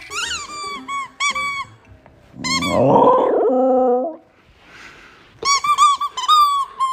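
Spiky rubber squeaky ball squeaking as a dog bites down on it: quick runs of short, high squeaks in the first second or two and again near the end. A louder, lower-pitched sound comes in the middle.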